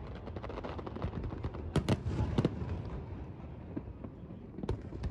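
Fireworks bursting: several sharp bangs, two close together about two seconds in and another near the end, over a steady low rumble.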